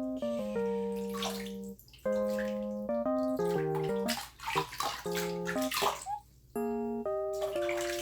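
Bath water splashing and running over a Pomeranian puppy being washed. It comes in several bursts, with bright, bouncy keyboard background music playing throughout.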